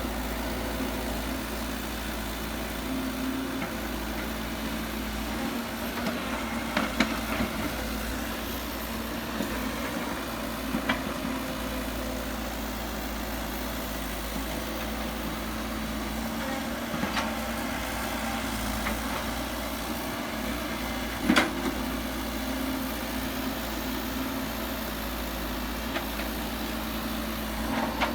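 Diesel engine of heavy earthmoving machinery running steadily, with a few sharp knocks and clanks from the machines' work, the loudest about two-thirds of the way through.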